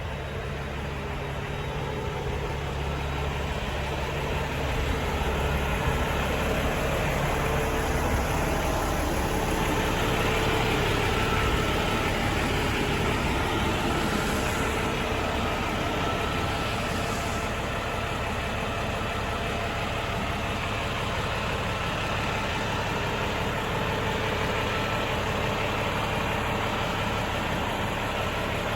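Truck engine running steadily, with no sharp events.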